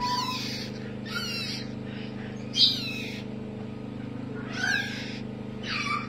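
Very young parrot chick squeaking in short, high-pitched falling calls, about five in six seconds, as it is fed through a syringe tube: food-begging calls. A steady low hum runs underneath.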